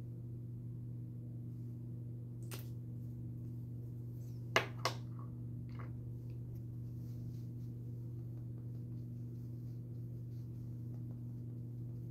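Steady low hum with a few sharp clicks of small plastic makeup items being handled: one about two and a half seconds in, two close together near the middle, and a softer one just after.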